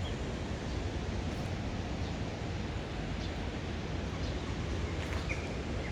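Steady rushing noise of a river running high and fast in flood.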